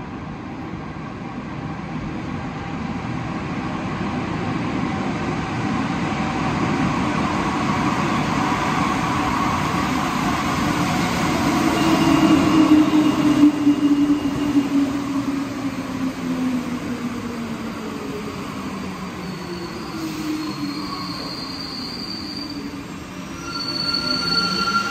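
Alstom NS-16 metro train moving along an underground station platform: the rumble of steel wheels on rail with the whine of its traction motors gliding in pitch. The sound builds to its loudest about halfway through, then eases, and swells again near the end.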